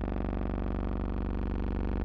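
A steady buzzing drone at one unchanging pitch, with a fast even flutter in its low end.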